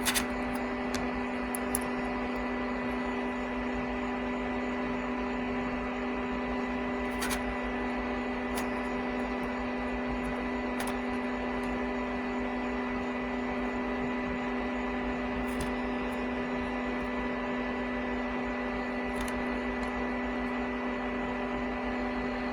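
Steady hum with several fixed tones over a faint hiss, with a few faint clicks.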